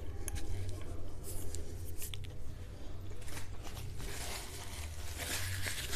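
Hand handling of a crumbly snack cake in its paper, pulled apart by the fingers: small scattered crackles and tearing sounds, with a louder burst of crinkling near the end, over a steady low hum.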